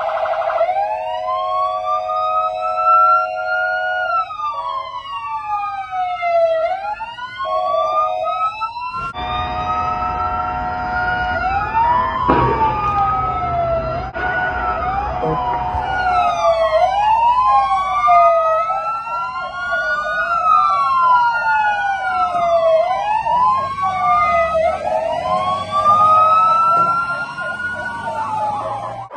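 Ambulance siren wailing, a tone that climbs slowly and drops back over and over, with two or more wails overlapping out of step much of the time. It is broken by short steady tones at the start and around seven to ten seconds in. A low rumble comes in underneath about nine seconds in.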